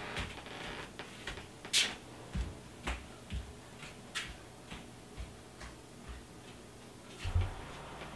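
Light clicks and knocks, roughly two a second, with a sharper click about two seconds in and a heavier low thump near the end.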